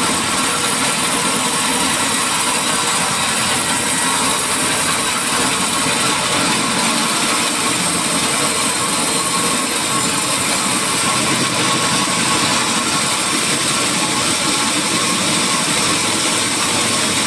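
Sawmill machinery running steadily while teak is processed: a loud, even mechanical noise with faint high steady tones, unchanging throughout.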